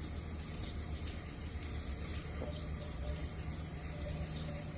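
Outdoor background: faint, repeated bird chirps over a steady low hum.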